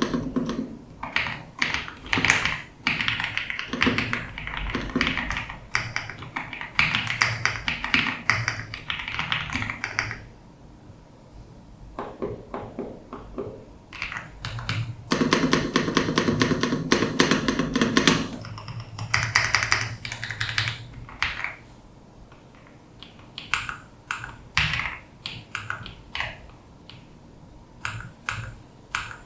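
Typing on an Ajazz AK820 Pro mechanical keyboard, its keystrokes giving the deep thocky sound the board is sold on. The typing is dense at first and thins to scattered presses, then comes a very fast run of keystrokes a little past the middle, and slower typing after that.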